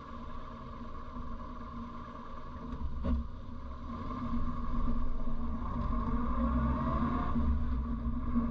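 A 1957 Morris Minor's small four-cylinder engine heard from inside the cabin, idling at first and then pulling away. There is a single click about three seconds in, then the engine grows louder and its pitch rises for a couple of seconds before dropping back near the end.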